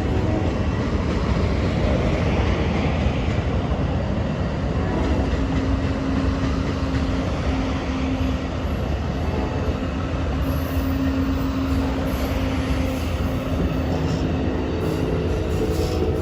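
Amtrak passenger train rolling slowly past, a continuous rumble of wheels on rail. A steady tone joins about five seconds in and fades near the end, likely wheel squeal.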